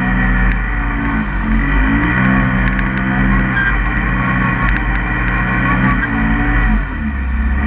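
Polaris RZR side-by-side's engine running hard at high revs while driving through deep snow. Its pitch dips briefly and climbs back several times.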